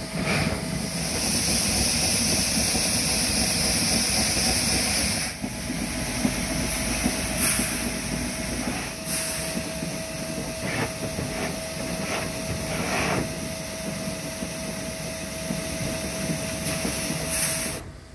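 S.A.M. grain auger with its electric motor running, a steady whine over the rumble and rattle of grain being carried up the tube and pouring into the hopper, with a strong hiss in the first few seconds. A few sharp knocks come in the middle, and the noise cuts off suddenly near the end.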